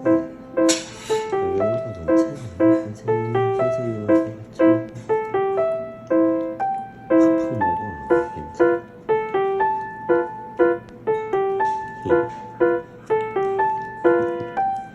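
Background music: a piano tune of short, separate notes played at an even pace, with a brief bright high-pitched accent about a second in.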